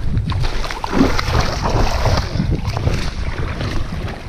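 Wind buffeting a body-worn camera's microphone in an uneven low rumble, with scattered scrapes and knocks from close handling.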